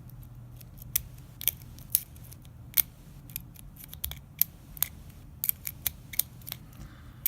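Sharp, irregular metallic clicks and scrapes of a thin Southord key extractor being worked and rocked in the keyway of a Master Lock 140 brass padlock, in an attempt to bypass the lock. A faint steady low hum runs underneath.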